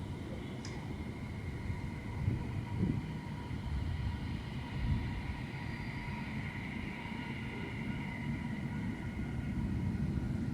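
Jet engines of a Boeing 777-300ER airliner: a steady low rumble with a high whine that slowly falls in pitch through the middle of the sound.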